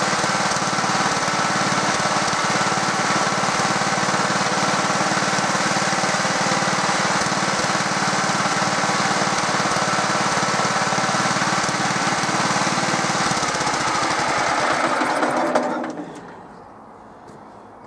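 Small air-cooled single-cylinder engine of a 1968 Stothert and Pitt W28 Mk 1 roller running steadily at speed. It is shut off about two seconds before the end and dies away to a stop.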